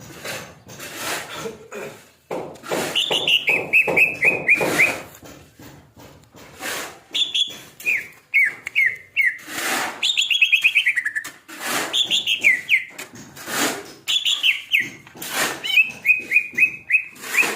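Green leafbird (cucak ijo) giving about six bursts of rapid repeated notes, each run falling from high to lower pitch, amid many sharp knocks and rustles. The bird is in what keepers call an 'OB' (over-birahi, over-excited) state.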